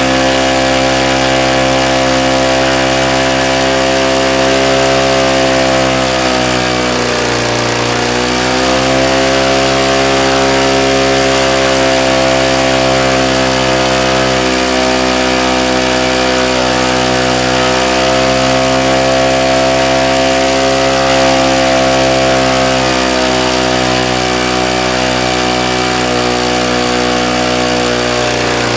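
Flame-power 294cc two-cylinder boxer engine running steadily. It slows briefly about seven seconds in, then picks back up to speed, and dips slightly again near the end.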